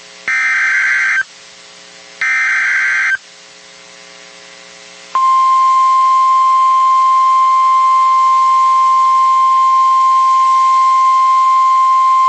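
NOAA Weather Radio Emergency Alert System signal announcing a tornado warning. It starts with two bursts of SAME digital header data, each a harsh, warbling screech about a second long, spaced about two seconds apart. About five seconds in, the 1050 Hz warning alarm tone begins: one steady, piercing high beep that holds without a break.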